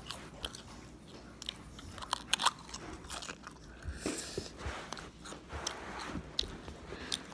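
Faint, scattered clicks, taps and rubs of fingers handling the phone that is recording, close against its microphone.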